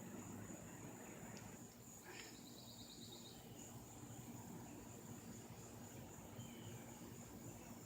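Faint outdoor ambience: a steady, high insect drone like crickets, with a short rapid trill about two seconds in and a few faint chirps later.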